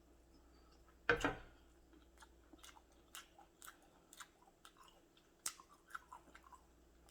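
Close-miked person chewing food with mouth open, a series of short wet clicking smacks, with one louder bite about a second in.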